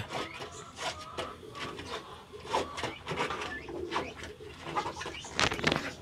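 Pigeons cooing among other birds calling in farm pens, with scattered short calls and a brief louder sound near the end.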